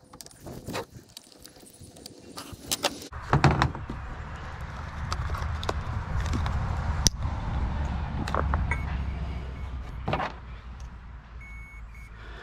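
Hands handling small plastic and metal parts of an RC boat: scattered clicks and rattles, with one sharp click midway. From about three seconds in to about ten seconds in, a low rumble is the loudest sound.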